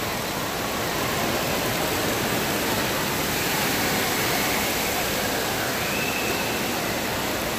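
Steady rush of running water, with faint distant voices now and then.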